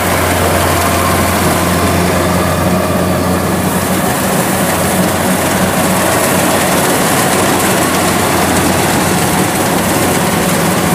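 Kubota DC93 combine harvester running steadily and loudly: a low diesel engine drone under a dense mechanical rush from the working machine.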